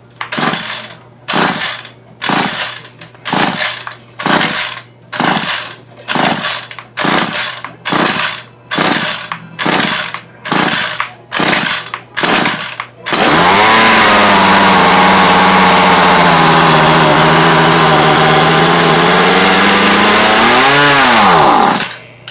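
Ryobi gas string trimmer engine being pull-started: about a dozen quick pulls, roughly one a second, before it fires and runs steadily for several seconds. Near the end it surges up in pitch, then dies, which the owner takes for the engine starving for fuel and needing its carburetor adjusted.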